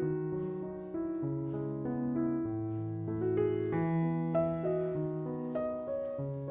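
Background music: a gentle piano piece with bass notes shifting every half second or so and a melody above.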